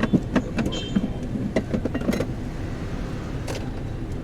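Steady low rumble of a moving road vehicle heard from inside, with frequent light clicks and rattles and a brief squeak.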